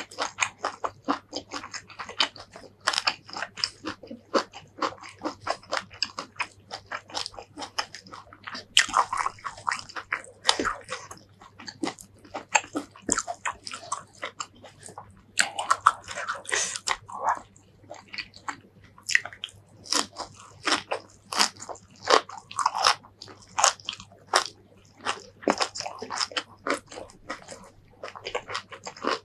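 A person chewing close to the microphone, eating fried fish with rice and raw greens by hand: a steady run of short, crisp crunches and bites with wetter chewing in between.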